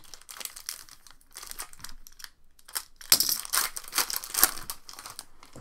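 Foil trading-card pack crinkling in the hands and being torn open, loudest in a burst of tearing and crackling about three seconds in.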